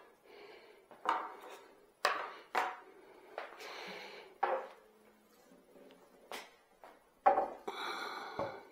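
Metal parts of a dust collector being handled and set down: a series of about six sharp knocks and clinks, with two short stretches of scraping between them.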